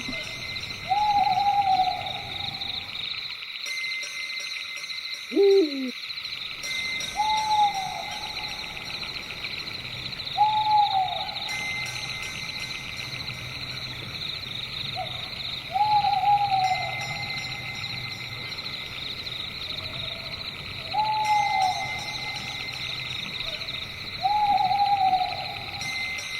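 Owl hooting, a short hoot falling in pitch every three to five seconds, over a steady high-pitched night chorus. About five seconds in comes one louder call that sweeps up and down in pitch.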